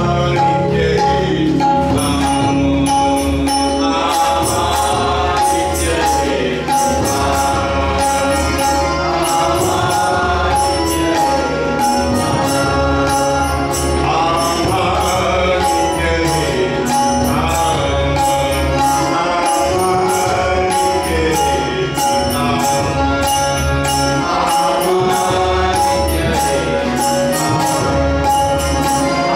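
Live Marathi devotional bhajan: a male lead voice sings into a microphone, accompanied by tabla, keyboard, a steady drone and a regular metallic beat.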